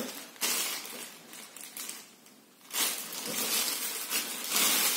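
Plastic packaging rustling and crinkling in irregular bursts as a trekking pole is handled, with a brief lull a little past the middle.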